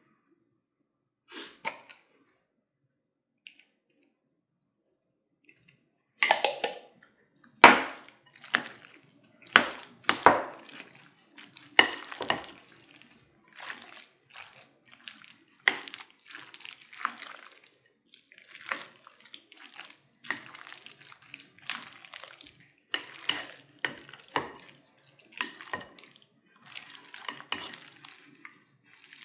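Metal fork stirring relish into potato salad in a glass bowl. From about six seconds in come irregular wet scraping sounds, with sharp clinks of the fork against the glass several times a second.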